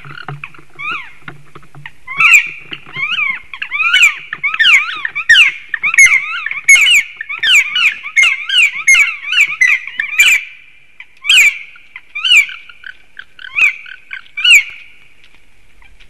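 Black woodpeckers calling loudly in rapid, overlapping series of repeated calls. The calls thin to single calls a couple of seconds apart and stop a little before the end. The uploader takes the calling for a likely territorial dispute between the birds.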